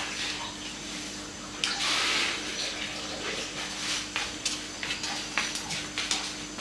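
A brief rush of splashing water about two seconds in, then scattered light clicks and knocks of household things, with a wooden chair handled near the end, over a faint steady hum.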